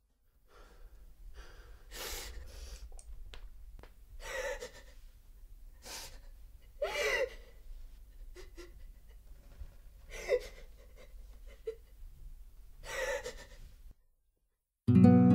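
A boy gasping and breathing raggedly, one breath every couple of seconds, over a low steady hum. Near the end the sound cuts out briefly and acoustic guitar music begins.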